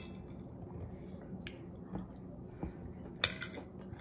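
Metal fork clinking and scraping against a ceramic plate while picking up food, with soft chewing. There are a few light clinks and one louder clink about three seconds in.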